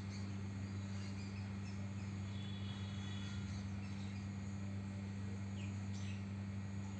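A steady low hum, with a few faint high chirps and a couple of clicks in the background.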